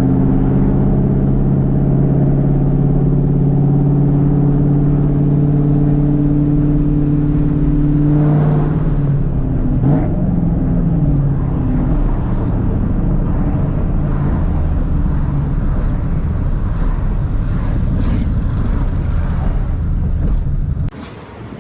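Cammed Ford 4.6L 2V V8 running through long tube headers, an H-pipe and straight pipes, holding a steady exhaust drone at constant revs for about eight seconds. The pitch then shifts and falls, and the exhaust runs on rougher and less even until the sound drops off sharply near the end.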